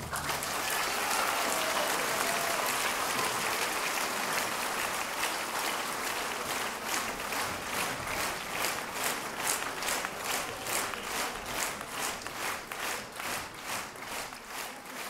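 Concert audience applauding; about six seconds in the clapping falls into rhythmic unison at about two claps a second, slowly fading.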